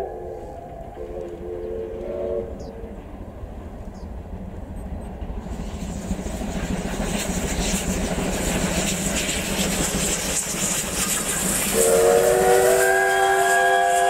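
Double-headed C11 and C12 steam tank locomotives approaching: a short chord-like steam whistle about half a second in, then the train's noise building steadily as it nears, and a loud, long steam whistle starting about twelve seconds in.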